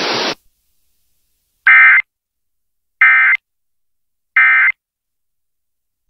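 Emergency Alert System end-of-message signal: three short, loud bursts of warbling SAME digital data tones, about 1.3 s apart, as relayed by an FM station's stream. A burst of hiss cuts off just before them.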